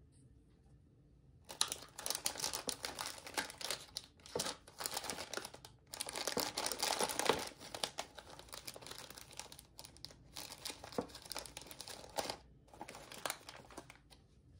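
Thin clear plastic wrappers on packaged hotel toiletries crinkling as a hand rummages through them. It starts about a second and a half in and goes on in bursts with a few short pauses.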